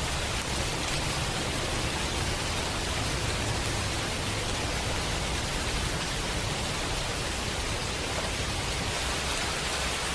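Steady, even water noise with a strong hiss, as of heavy rain or rushing floodwater.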